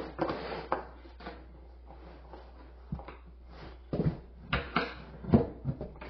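Pressed-board bookshelf panels being handled and fitted together: scattered wooden knocks and clunks, with a cluster of louder knocks about four to five and a half seconds in.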